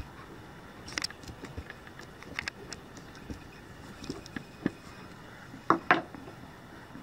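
Kittens scuffling and pouncing on a woven rug: scattered soft taps and scrapes, with two louder thumps close together about six seconds in.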